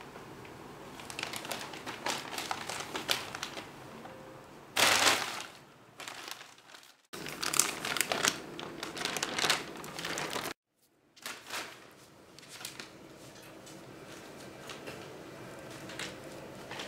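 Large plastic shopping bag crinkling and rustling in irregular bursts as kittens scramble in and around it. The loudest crackle comes about five seconds in, and the sound cuts off abruptly twice.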